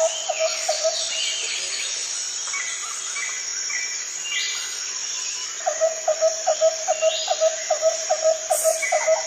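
Jungle ambience: a constant high insect drone with scattered bird chirps and calls. A repeated low note, about four a second, stops shortly after the start and comes back a little past halfway.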